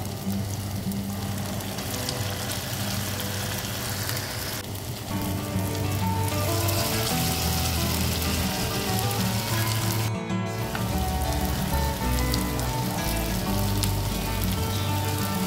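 Grated-potato patties sizzling and crackling in hot frying oil in a pan. The crackle grows louder about five seconds in, and the sound cuts out for a moment about ten seconds in.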